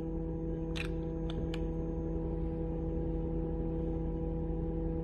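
A steady electrical hum, with a few light clicks in the first two seconds as an opened iPhone 13 Pro is handled and its display connector pressed down.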